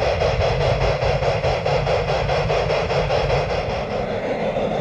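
Model two-truck Shay locomotive and log cars running along garden railway track, a steady clatter with a fast, even rhythm over a low rumble. The sound changes slightly about four seconds in.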